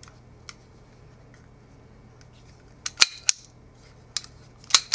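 Sharp metallic clacks from the action of a Walther PPK/s CO2 blowback BB pistol being handled, a loud pair about three seconds in and another pair near the end.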